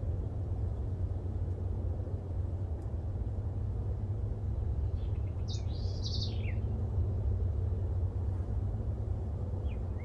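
A green-winged saltator singing a short phrase of quick whistled notes about five seconds in, with another phrase starting near the end. A steady low rumble runs underneath.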